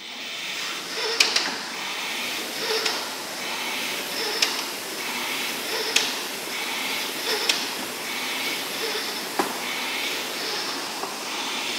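Concept2 indoor rower's air flywheel whooshing, surging with each drive stroke at about one stroke every second and a half, with a sharp click on several strokes.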